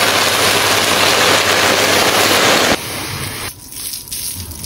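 Hot baklava crackling and sizzling as cool sugar syrup is poured over it, a loud dense hiss. It cuts off suddenly a little under three seconds in, leaving a much quieter hiss.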